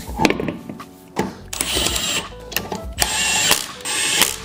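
Cordless impact wrench spinning lug nuts onto the wheel studs in short rattling bursts, three of them from about a second and a half in, after a few light clinks as the wheel is fitted.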